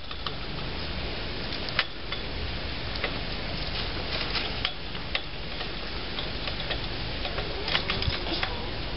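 Kitten chewing raw pumpkin close to the microphone: soft, irregular wet clicks and smacks, a cluster of them near the end, over a steady hiss.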